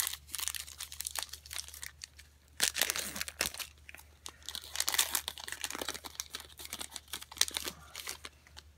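Plastic wrapper of a football trading-card pack crinkling and tearing as the pack is opened by hand, in irregular spurts that are loudest about three and five seconds in and die down near the end.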